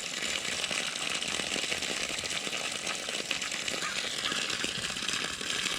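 Water running hard from a newly installed frost-free yard hydrant, a steady rushing spatter.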